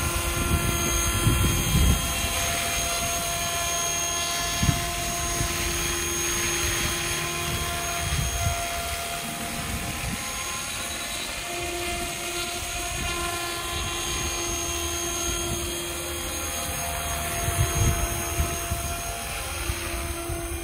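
Radio-controlled model helicopter, a Super Voyager E wearing an Ecureuil scale body, flying: a steady whine from its motor and rotors that slowly bends in pitch as it passes and heads away. Wind knocks on the microphone now and then.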